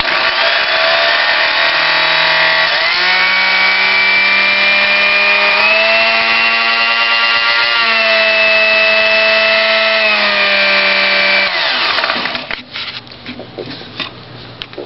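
Vintage Corina electric blender's motor running, its pitch stepping up and down as the speed changes. It switches off about eleven and a half seconds in and spins down, followed by a few light clicks.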